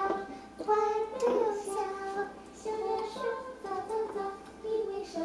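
A young child singing a simple tune, holding short steady notes that step up and down in pitch.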